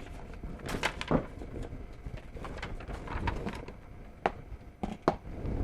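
Handling noise: several light knocks and clicks as circuit boards are moved on a table, over a low room rumble.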